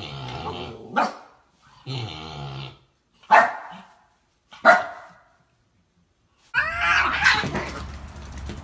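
Husky barking and grumbling in separate short calls: two drawn-out, lower grumbles, then two sharp barks. A second of quiet follows, and a different, noisier sound starts near the end.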